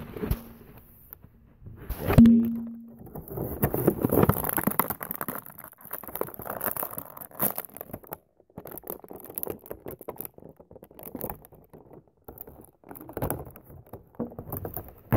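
Close-up rustling, scraping and knocking of plastic and cardboard toy packaging as an action figure is pulled out of it, with a loud thump about two seconds in.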